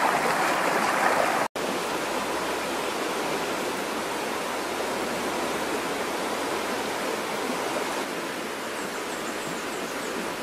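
Fast-flowing, swollen river rushing, a steady wash of water noise. It is loudest in the first second and a half, breaks off for an instant, then goes on a little softer.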